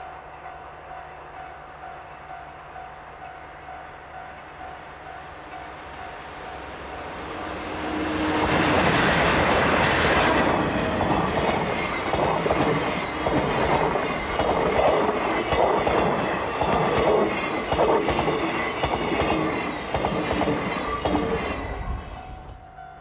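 Passenger train coming up the track and passing close by, its wheels clattering in a steady rhythm over the rail joints, then fading away near the end.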